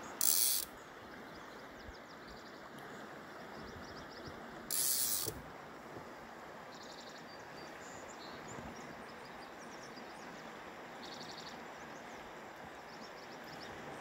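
Steady rush of a flowing river, broken twice by a short, loud, high hiss lasting about half a second, right at the start and about five seconds in, with faint quick ticking now and then.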